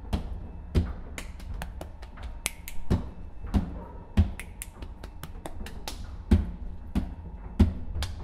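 Body percussion: heavy boot stomps on a wooden floor, each a deep thud, mixed with quicker sharp finger snaps, in a syncopated rhythm.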